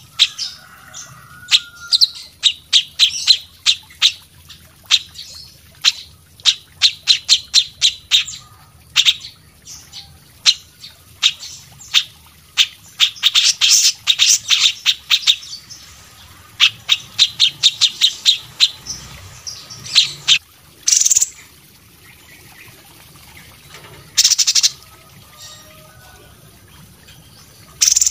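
Songbird calling: rapid runs of short, sharp, high chirps, several a second, broken by brief pauses. The notes thin out in the second half, with two longer, harsher bursts.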